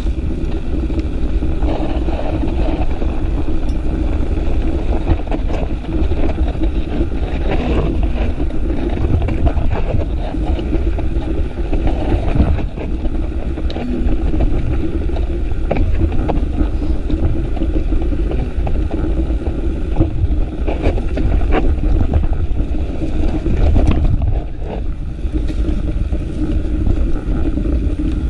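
Mountain bike descending a rough dirt trail: wind buffeting the microphone over the rolling tyres, with scattered knocks and rattles as the bike hits bumps.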